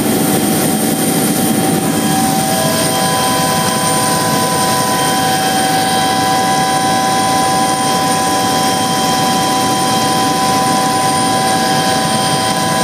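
Helicopter engine and rotor noise heard from inside the passenger cabin: a loud, steady drone with several steady high whining tones over it.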